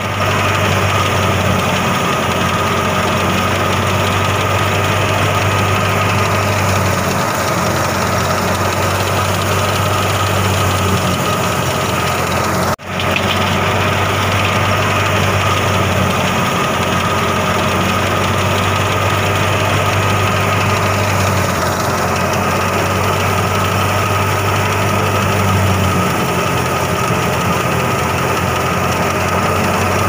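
Tractor-driven wheat threshing machine running steadily at working speed, a loud continuous engine and machine hum, while grain pours from its outlet chute. The sound cuts out for an instant about a third of the way in.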